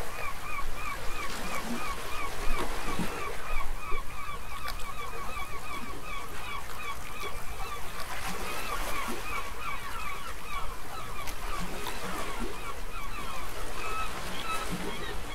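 Birds calling in a fast, continuous series of short, repeated notes, several a second.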